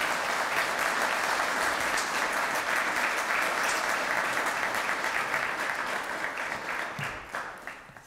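Audience applauding, dying away near the end.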